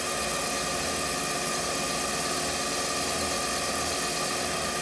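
Mini lathe running steadily with its motor whine and several steady tones, as a cutting tool faces off the end of a Delrin chain-roller bushing. The cut is a fairly aggressive one.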